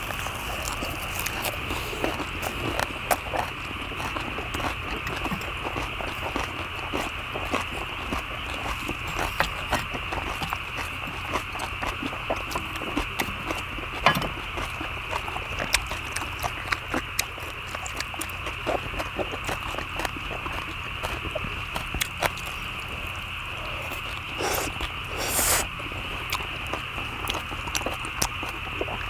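Several people chewing and biting into leafy lettuce wraps of stir-fried pork and kimchi, with irregular wet crunches and the clicks of chopsticks on a metal cauldron lid, over a steady high drone. There is one sharper click about halfway through and a short rustling rush near the end.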